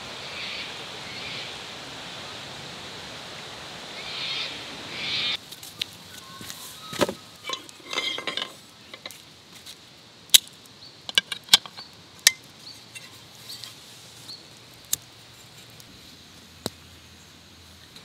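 Quiet evening outdoor ambience with a faint high haze, then sharp clinks and knocks from camp cookware: a metal pan being handled and a knife tapping on a plate while vegetables are cut.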